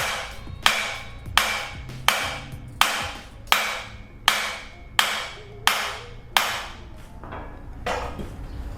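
Steady metal-on-metal hammer blows, about one every 0.7 seconds, each with a short ringing decay: the old front wheel bearing is being driven out of its hub. The last couple of strikes near the end are weaker.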